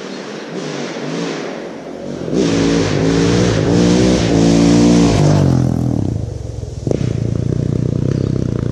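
Enduro dirt bike engine approaching and accelerating hard past, revving up and dropping back several times as it goes through the gears, then falling in pitch as it passes. About seven seconds in there is a sharp crack, followed by a steady, lower engine note.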